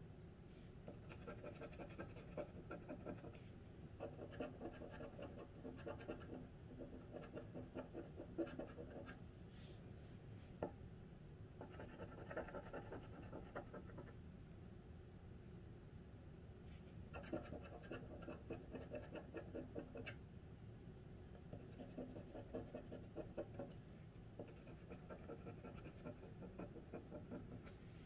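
Metal tool scraping the coating off a scratch-off lottery ticket: quick rasping strokes in spells of a few seconds, with short pauses between.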